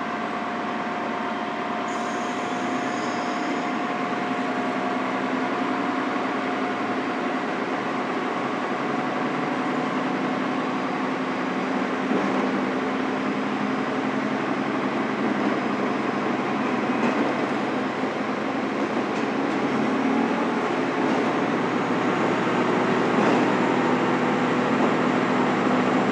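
Diesel railcar heard from inside the passenger car as it pulls out of the station: a steady engine drone with wheel and rail noise, growing gradually louder as the train gathers speed.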